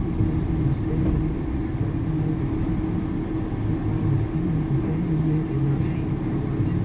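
Car engine and road rumble heard from inside the cabin while creeping along in slow city traffic, a steady low drone with a constant hum.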